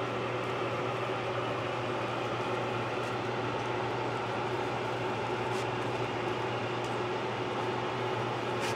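Steady drone of a running motor with a low hum, unchanging throughout, with a few faint light ticks.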